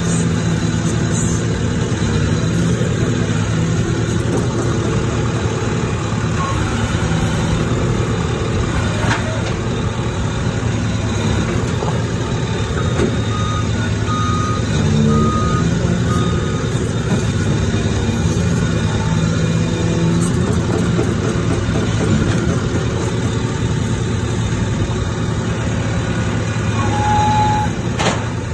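SkyTrak 8042 telehandler's diesel engine running from inside the cab, its note rising and easing a little while the boom and forks are worked. Three short beeps about a second apart sound about halfway through, and a sharp knock comes at the very end.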